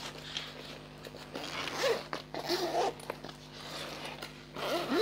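Zippers on a child's school backpack being pulled open and shut in several short runs, each with a rising and falling pitch.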